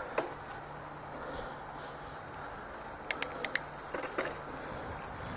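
Mountain bike ridden up singletrack: a steady rolling hiss with sharp mechanical clicks from the bike, a quick run of four about three seconds in and a few knocks a second later.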